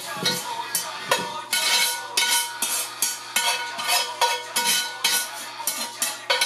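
A wooden spatula stirring and scraping onions in a frying pan, in quick even strokes about two to three a second.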